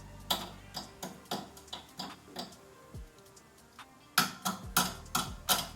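Sharp metal clicks and taps from hand tools, about two a second at first, then a quicker run of them near the end, over soft background music.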